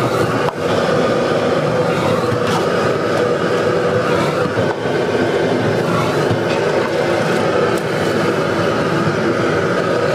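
Diced onions and black bean paste frying in a large wok over a high-flame gas wok burner: the steady noise of the burner and the frying, with a few faint scrapes of the stirring utensil against the wok.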